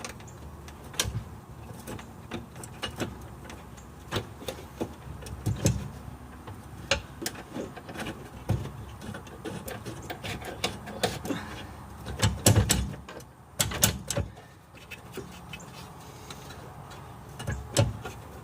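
Irregular clicks and knocks of metal parts and tools being handled while steering box mounting bolts are started by hand, with a cluster of louder knocks about twelve seconds in.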